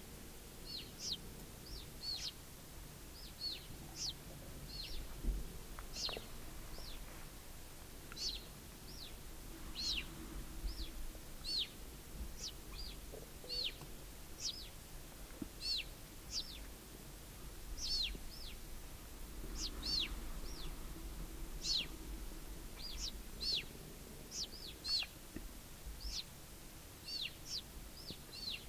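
Puma cubs chirping: high, bird-like calls, each a short falling whistle, repeating irregularly one to three times a second.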